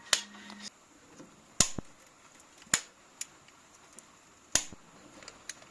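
About six sharp clicks and taps at irregular intervals, the sound of hand tools and metal parts being handled during engine reassembly.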